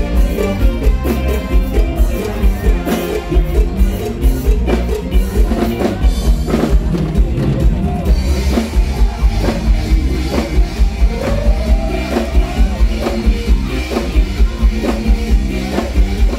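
Loud live band music, a drum kit keeping a steady beat.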